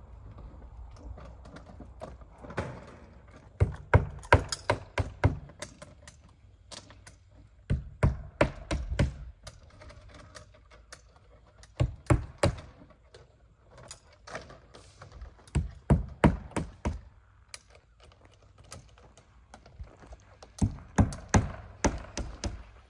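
Hammer driving nails to fasten vinyl siding to a house wall: about five bursts of several quick, sharp strikes each, a few seconds apart.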